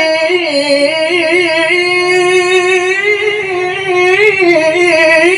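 A male Qur'an reciter chanting one long, drawn-out melodic phrase into a handheld microphone, the pitch held and turned in small wavering ornaments, with a dip about a second in and a rise near the end. It is melodic (mujawwad-style) Qur'an recitation, stretching the verse between 'aziz' and 'hakim'.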